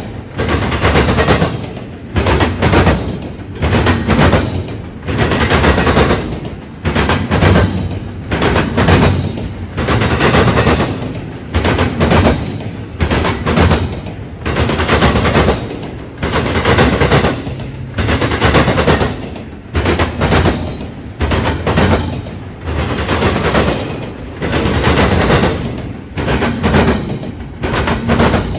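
Norfolk Southern intermodal train's wheels slamming over a railroad diamond crossing: loud clusters of banging impacts repeat about every second and a bit as each set of trucks crosses, over the train's steady rumble.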